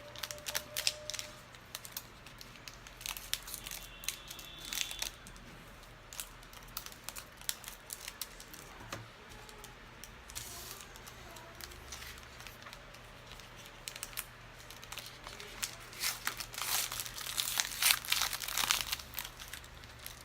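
Foil trading-card pack wrapper crinkling and being torn open, in irregular crackles that grow densest and loudest near the end.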